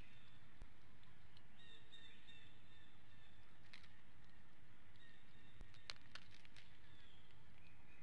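Bald eaglets giving drawn-out, high whining calls in two stretches, about two and five seconds in, over a steady outdoor hiss with a few sharp ticks.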